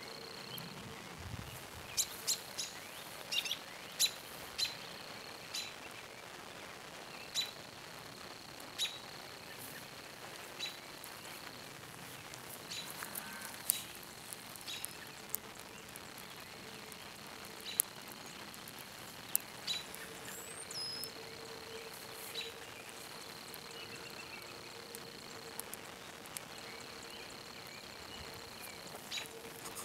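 Wood fire in a small clay-and-brick furnace crackling, with irregular sharp pops scattered throughout. An insect trills high and steady in on-and-off stretches of a few seconds behind it.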